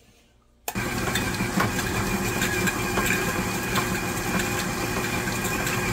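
KitchenAid stand mixer switching on about a second in and running steadily at speed, its flat beater creaming butter, cream cheese and sugar in the steel bowl: a motor hum and gear whine with scattered light clicks.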